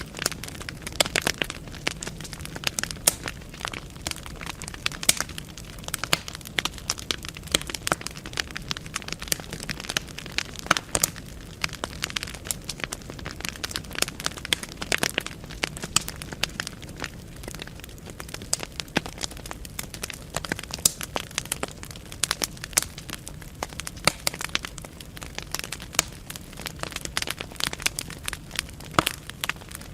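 Wood fire burning in a fireplace: logs crackling and popping with irregular sharp snaps over a steady low hiss of the flames.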